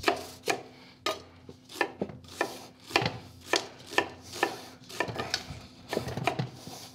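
Chef's knife chopping onion on a wooden cutting board, about two sharp knife strikes a second, with the softer sound of hands rubbing pie dough in a stainless steel bowl.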